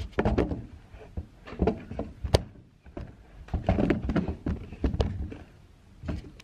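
Camera handling noise: the microphone rubbing and bumping against clothing, giving irregular thumps, knocks and rustling.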